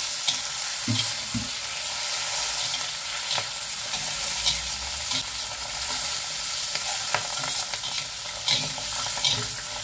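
Mushrooms and fried fish pieces sizzling in hot oil in a metal wok, stirred with a metal spatula that scrapes and ticks against the pan over and over.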